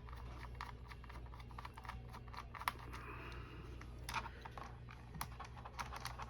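Scattered small clicks and taps of a Torx screwdriver and metal parts as the hard drive's mounting bracket is unscrewed and worked loose inside a 2012 iMac, the clicks coming more often toward the end, over a steady low hum.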